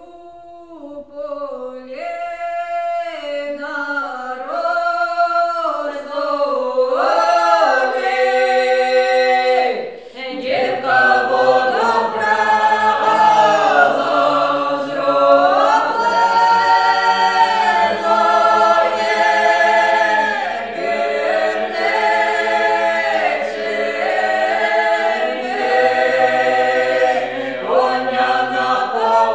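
Unaccompanied Ukrainian folk song: one female voice sings alone at first, and about ten seconds in a mixed group of women's and men's voices joins in, singing in harmony.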